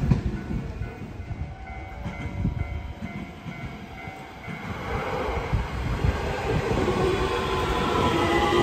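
A JR West 225 series 5100 subseries electric train runs in alongside the platform. From about halfway through, its traction motors whine with several layered tones over the rumble of wheels on rail, growing steadily louder as it comes close.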